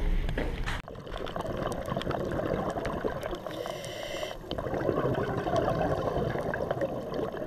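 Underwater sound of a scuba dive: a steady bubbling and gurgling of exhaled air, with a short hiss of breath drawn through the regulator about three and a half seconds in. Under the first second, handling knocks from the previous shot.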